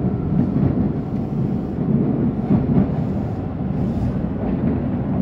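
Steady low rumble of a moving public-transit car, heard from inside while riding.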